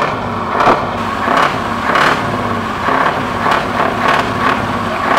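Scania 143H 500's V8 diesel engine running as the truck rolls slowly in, steady and loud, with a string of short sharp noises over it.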